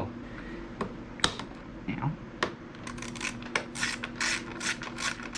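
Ratchet wrench clicking in a quick run of short strokes, about four a second, starting about three seconds in, after a few separate clicks and knocks.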